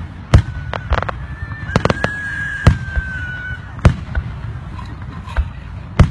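Aerial fireworks shells bursting overhead: about ten sharp bangs at uneven intervals, with a quick cluster of three about two seconds in. A long high whistle sounds over the bangs for about two seconds, falling slightly at its end.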